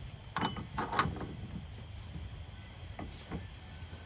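A few light metallic clicks and scrapes of the axle nut being turned by hand onto the threaded rear axle stub at the new wheel hub, about half a second and a second in and again near three seconds. Steady cricket chirring runs underneath.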